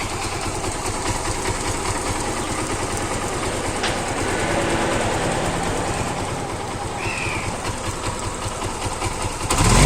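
Suzuki Gixxer 150's single-cylinder four-stroke engine idling steadily and smoothly, with a new cam chain and chain tensioner adjuster fitted to cure a loose-timing-chain noise. Near the end the engine note rises and gets louder.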